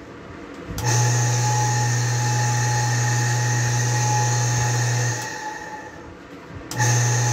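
Half-horsepower peripheral electric water pump switched on about a second in, starting straight away and running with a steady hum, switched off after about four seconds, then switched on and running again near the end. It starts and runs freely instead of sticking, though its bearings still need replacing.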